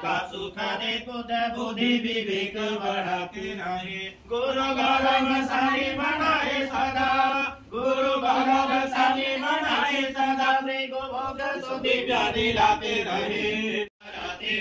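Hindu devotional mantra chanted by a voice in long, held phrases, with short breaks about four and seven and a half seconds in and a brief dropout near the end.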